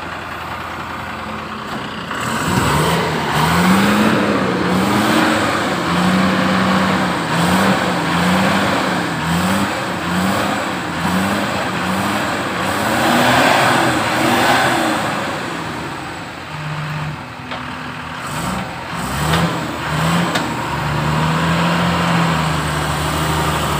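Heavy diesel engines of a JCB backhoe loader and a Tata truck revving under load as the loader pushes the truck stuck in mud, the engine pitch rising and falling over and over. The sound gets louder about two seconds in.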